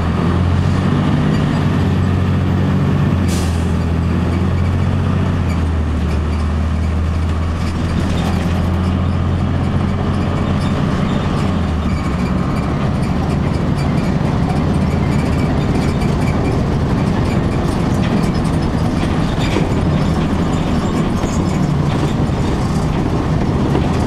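A 2002 Blue Bird CS transit bus driving along, heard from inside the cabin. Its Cummins ISC inline-six diesel and Allison automatic transmission give a steady low drone over road noise, and the drone's pitch steps twice.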